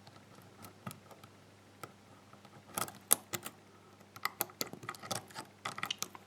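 Small metallic clicks and ticks of a deep hook pick working the pins of a GEGE euro-cylinder lock with serrated security pins, under a tension wrench: single-pin picking. The clicks are sparse and faint at first, then come thicker and louder from about three seconds in.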